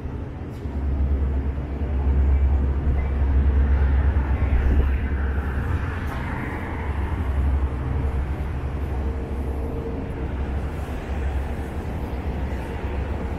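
City street traffic: a car drives past about halfway through, over a steady low rumble.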